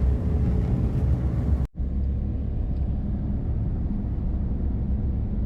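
A car driving: steady low engine and road rumble. It breaks off for an instant about a second and a half in, then carries on.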